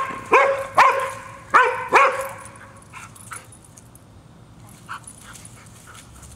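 German Shorthaired Pointer barking, five quick loud barks in the first two seconds, then falling quiet.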